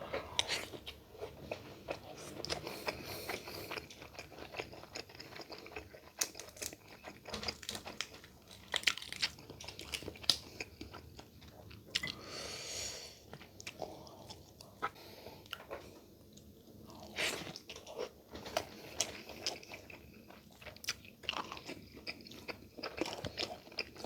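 Close-miked eating sounds: chewing and biting, with many short sharp crunches and wet mouth clicks. A brief hissing sound comes about halfway through.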